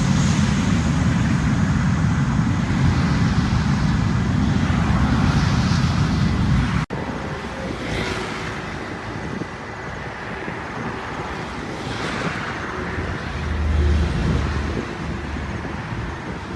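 A loud, steady low engine rumble for about the first seven seconds that stops abruptly, then quieter traffic-like noise with a vehicle swelling past every few seconds.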